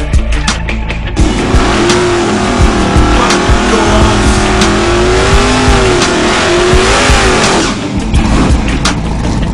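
Fox-body Ford Mustang drag car doing a burnout: its rear tires squeal with a wavering pitch over the engine, starting about a second in and stopping shortly before the end. Background music with a steady beat plays throughout.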